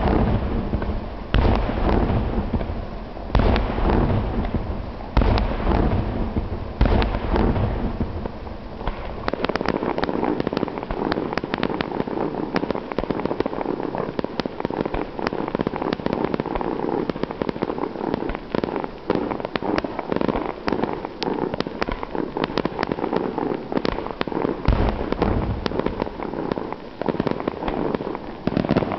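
Fireworks display: heavy shell bursts going off every second or two for the first several seconds, then a long run of dense, rapid crackling and popping. A couple of deeper booms come again near the end.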